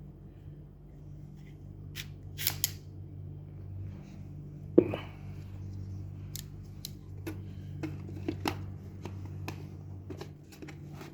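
Plastic parts of an NCR ATM banknote cassette being handled and pried apart: scattered clicks and knocks as a plastic rail and its pin are worked out, with one sharp knock about five seconds in. A low steady hum runs underneath.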